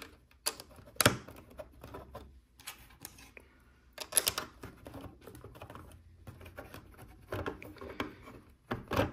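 Plastic LEGO pieces clicking and snapping as plates are pressed onto a baseplate, with loose pieces clattering in between; the sharpest snaps come about a second in and around four seconds.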